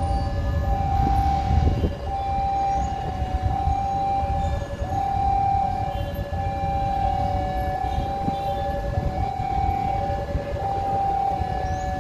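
Railway warning alarm sounding two tones, a higher and a lower one, taking turns about once a second without pause, as a diesel-hauled train approaches. A low rumble runs underneath.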